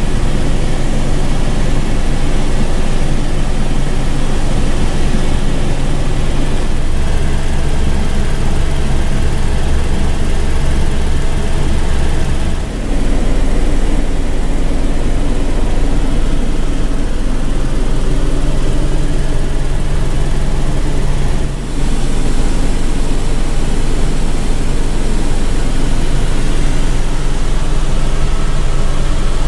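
Steady rotor and turbine noise inside the cabin of a Eurocopter AS350 B2 Écureuil helicopter in flight, with a low steady hum. The noise dips briefly twice and shifts slightly in character at those points.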